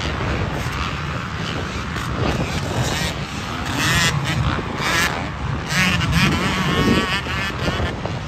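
Several motocross bikes running on a dirt track, their engines revving up and down as they ride, loudest about four seconds in and again around six to seven seconds.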